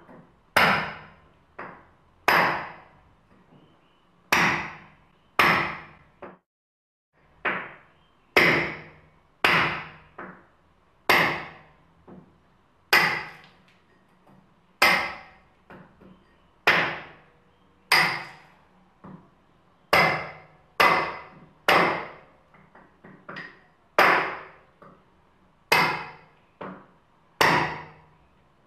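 A run of hard knocks or strikes, about one a second, each ringing out briefly, with loud and softer blows mixed and a short pause about six seconds in.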